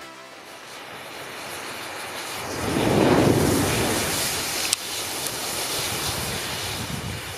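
Thousands of matches in a matchstick volcano igniting together: a rush of flame that builds to its loudest about three seconds in, then a steady burning rush. One sharp crack about five seconds in.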